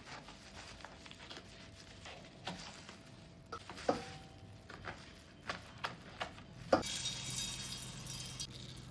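Kitchen utensils being handled during food preparation: scattered light clicks and knocks. A few have a short metallic ring, the clearest about four seconds in.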